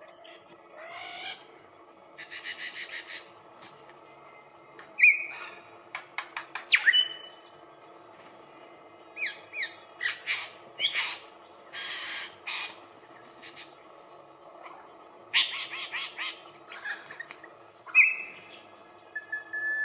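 Lyrebird singing a varied, mimicry-filled song: rapid rattling trills, sharp downward-sweeping whip notes, clicks, a buzzy note and short whistles, one after another with brief pauses.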